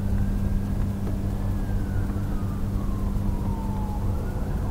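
A faint siren wailing, its pitch slowly falling and then starting to rise again near the end, over a steady low mechanical hum.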